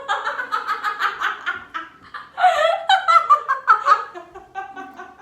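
People laughing hard in quick, pulsing giggles, in two fits: the second starts about two and a half seconds in and is louder, then the laughter tails off.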